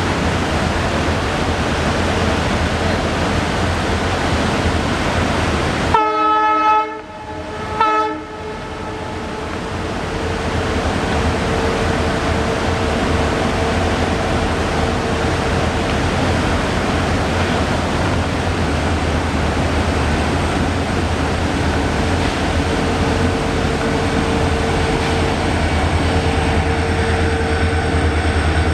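Four WDG4 (EMD GT46MAC) diesel-electric freight locomotives running slowly, a deep rumble under a steady rushing noise. The horn sounds a short blast about six seconds in, and a brief second blast near eight seconds.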